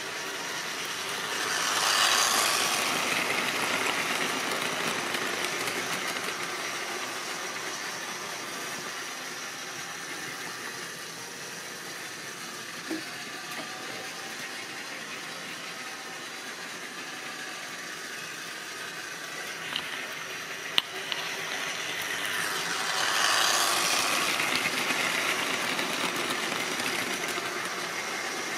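Model railway train running on sectional track: a steady whirring rattle of the electric motor and metal wheels on rail that swells loud twice as the train passes close. A few sharp clicks come as the wheels cross rail joints and points.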